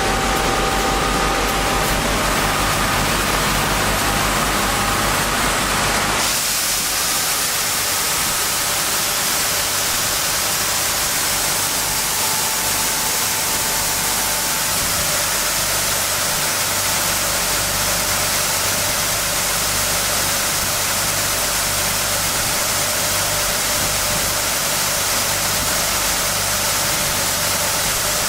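CNC profile-sanding machine running in automatic mode on a wooden board core, a loud steady noise. About six seconds in, a low hum and faint whine drop away and a brighter hiss takes over.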